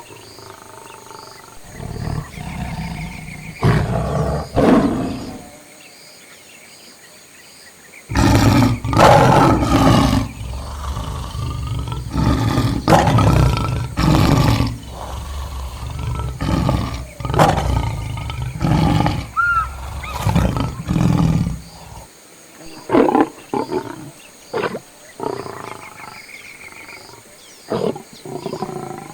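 Lions vocalizing in repeated bursts of deep growls and calls. There is a short lull about a quarter of the way in, then a long, dense run of calls, and after that shorter, separate bursts.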